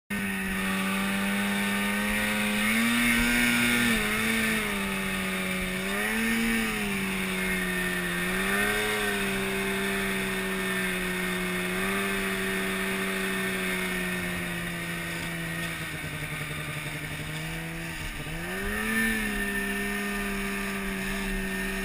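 Snowmobile engine running under way, its pitch swelling up and back down several times as the throttle is blipped, about 3, 6, 9 and 19 seconds in, over a steady hiss of wind and snow. The engine note drops off right at the end.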